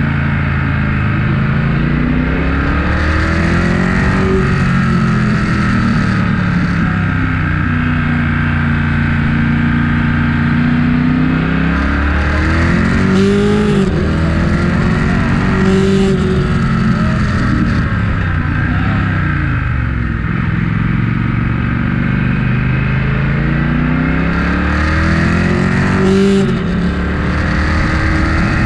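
Motorcycle engine heard on board, pulling hard with its pitch climbing and falling again and again as it accelerates, shifts and slows, with sharp drops about halfway through and near the end, over a steady wind rush.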